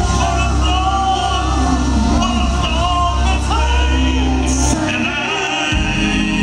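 Live R&B band playing with male lead and group vocals singing over it. The deep bass drops out briefly about five seconds in, then comes back.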